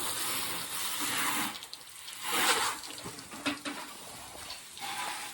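Water spraying onto a lawnmower as it is washed. The spray runs steadily at first, drops off, then comes back in a strong burst about two seconds in, followed by a few shorter spurts.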